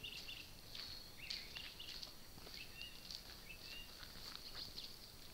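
Faint ambience of small birds chirping in short, repeated calls, with light rustling.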